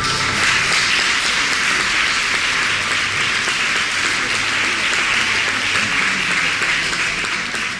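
Audience applauding steadily, taking over just as the music stops.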